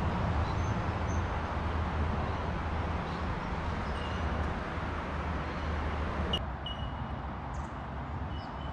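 Steady rumble of road traffic crossing a nearby bridge, with a few short high bird chirps. The rumble drops off abruptly about six seconds in.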